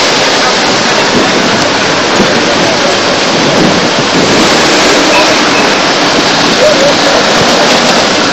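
Loud, steady rushing noise with faint crowd voices underneath.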